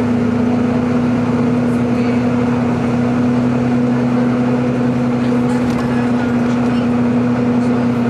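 Volvo B9TL double-decker's drivetrain heard from inside the bus while cruising: a steady hum-whine that holds one pitch, the 'hoovering' sound the B9TL is known for, over road and tyre noise.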